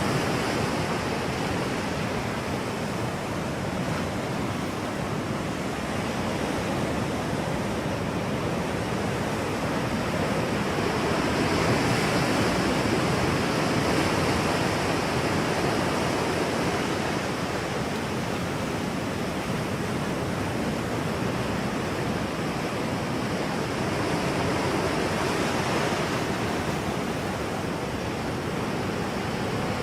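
Ocean surf: a steady wash of breaking waves, swelling a little about twelve seconds in and again near twenty-five seconds.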